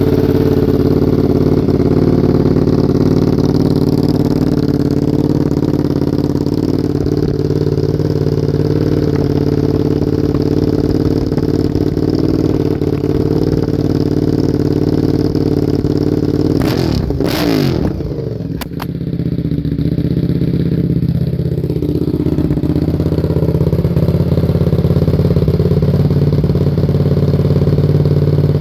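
Honda RC51 V-twin motorcycle engine idling steadily through aftermarket slip-on mufflers, with one quick throttle blip about two-thirds of the way in that drops back to idle.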